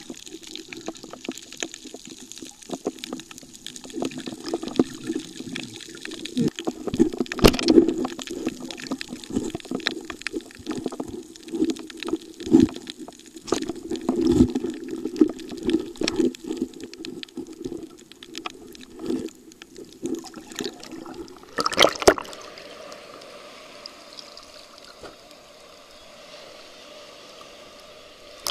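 Water heard with the microphone underwater in the sea: a muffled low rush with many irregular clicks and crackles. There is a louder burst about three-quarters of the way through, after which the sound is quieter and steadier.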